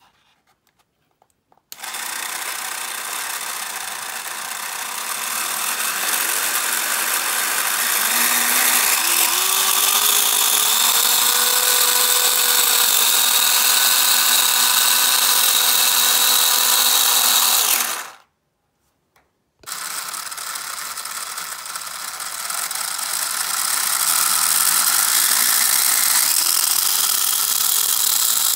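Small DC motors of a homemade cardboard biplane's mock five-cylinder radial engine whirring as they spin, with a rising whine as they speed up. They start about two seconds in, stop suddenly about eighteen seconds in, then start again a second and a half later and spin up once more.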